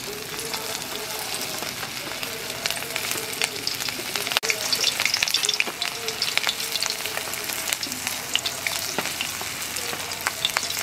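Cabbage manchurian balls deep-frying in hot oil in a kadai: a steady sizzle with many sharp pops and crackles as the batter-coated balls go into the oil. The sound briefly drops out a little under halfway through.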